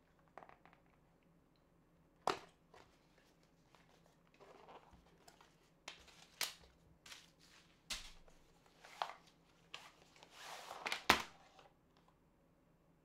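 Cardboard product box being handled and opened by hand: scattered taps, scrapes and short rustles of card and packaging. Near the end a longer rustle of packaging as a cloth drawstring pouch comes out, ending in a sharp knock about eleven seconds in, the loudest sound.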